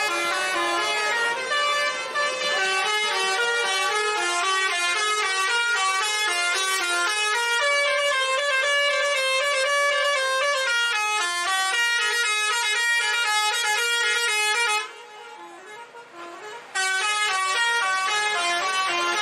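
Bus 'telolet' musical air horn playing a melody of quick stepped notes, several tones sounding together. About three quarters of the way through the horn breaks off for about two seconds, then starts playing again.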